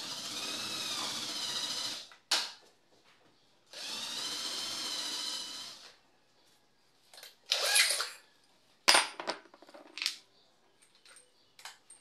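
Cordless drill boring into the edge of a wooden door jamb in two steady runs of about two seconds each, with a short pause between. Near the middle comes a shorter whirring burst, then a sharp knock and several small clicks.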